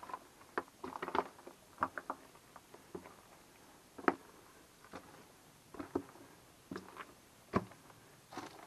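Footsteps on gravel and dry leaves: irregular short crunches about one or two a second, the loudest about four seconds in and again near the end.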